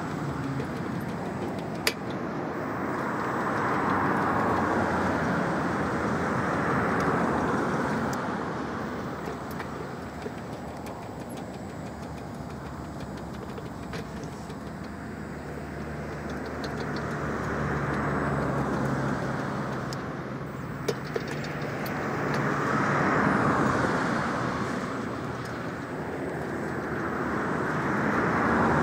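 Road traffic going by: tyre noise of passing cars swelling and fading every few seconds, with a few sharp clicks.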